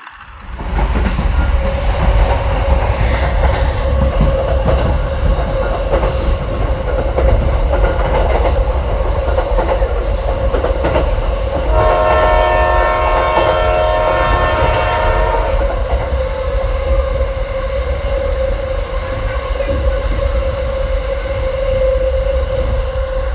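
Battery-powered toy train running on plastic track: a steady motor whine over a low rumble, with a clicking rattle through the first half. About twelve seconds in, a toy train horn sounds for about three and a half seconds.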